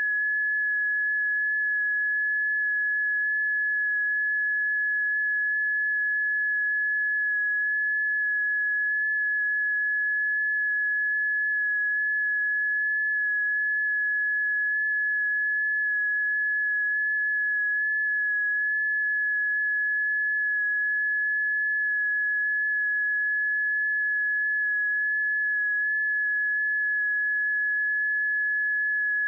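Electronic early-warning tone of a seismic monitoring stream: a single high, steady sine tone, holding one pitch and level throughout with no change.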